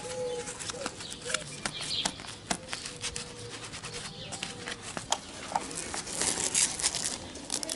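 Hands handling a motorcycle tank bag: rustling and crinkling of its clear plastic map pocket and fabric, with many small clicks, the loudest rustling about six to seven seconds in.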